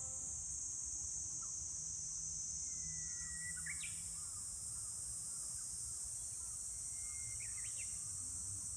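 Steady shrill drone of insects in the grass and trees, with a low rumble underneath. A bird calls twice, each call a thin held whistle ending in a few quick sharp rising notes, about three seconds in and again near the end.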